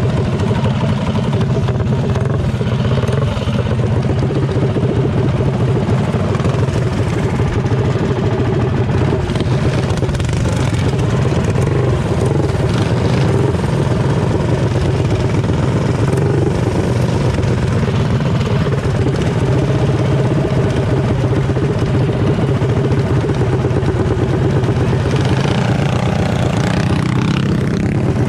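Small single-cylinder mini bike engines running steadily, with a change in revs near the end.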